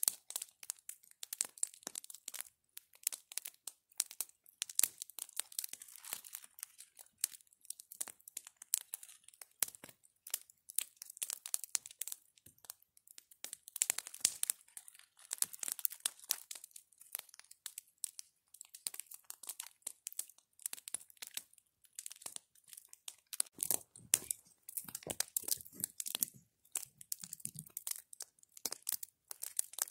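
Campfire of dry branches and twigs crackling, with many sharp, irregular snaps and pops, and a few duller knocks mixed in about two thirds of the way through.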